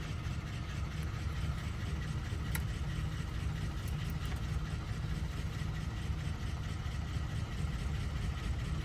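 A steady low mechanical hum, with one faint click about two and a half seconds in.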